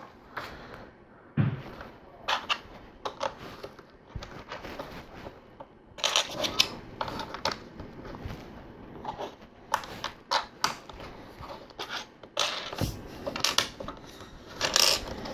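LEGO bricks being handled and pressed onto a build: irregular sharp plastic clicks and clatter, with short stretches of rustling as pieces are sorted.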